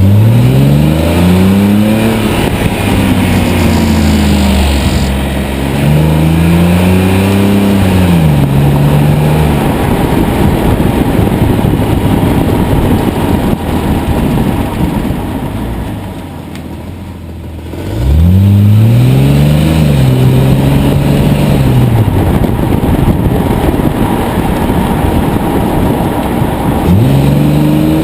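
2001 BMW 330i's 3.0-litre straight-six accelerating hard through the gears, its pitch rising and dropping at each upshift, in two pulls, with a dense steady rush of road and engine noise at speed in between and a brief lift off the throttle before the second pull.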